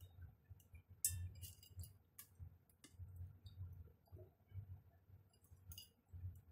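A few faint, scattered clicks and clinks of hands handling a small bowl and the metal inner pot of a rice cooker while chocolate chips are dropped onto the batter, over quiet room tone.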